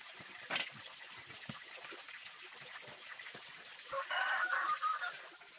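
Bamboo shoots being handled and tossed onto a woven bamboo tray, with a sharp knock about half a second in and light clatter. A chicken clucks for about a second near the end.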